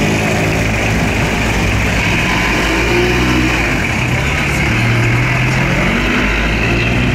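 Street traffic, with a motor vehicle engine running close by, its pitch rising and falling with the throttle.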